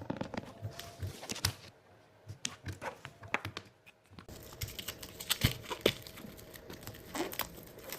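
Packaging being handled and unwrapped: crinkling and rustling with scattered sharp clicks and taps, pausing briefly about two seconds in and again around four seconds.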